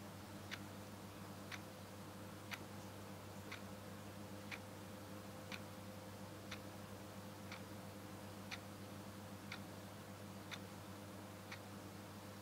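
Faint clock ticking, one sharp tick each second, evenly spaced, over a low steady hum.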